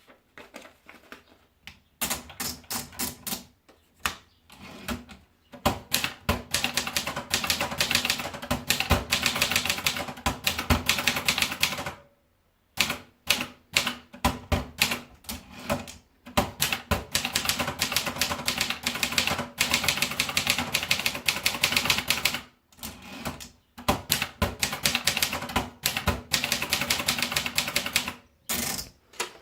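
Brother Deluxe 1350 portable typewriter being typed on: runs of rapid key strikes, the typebars clacking against the platen, broken by a few short pauses.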